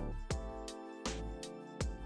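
Background music: an instrumental tune with notes struck at a steady, unhurried pace.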